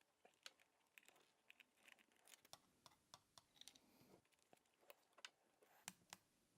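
Faint scattered clicks, taps and rustles of small objects being handled, a dozen or so irregular light knocks with soft rustling between them.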